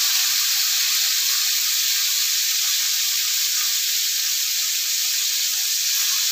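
Red snapper heads frying in hot oil in a wok, a steady sizzle.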